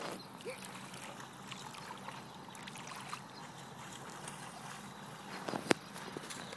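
Quiet splashing and trickling of shallow floodwater over grass, with a sharp click about five and a half seconds in.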